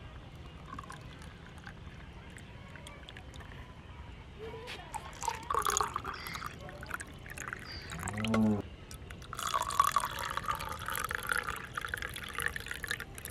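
Milk poured from a plastic jug into drinking glasses of mashed fruit, splashing and filling in two stretches, one about five seconds in and a longer one from about nine and a half seconds in.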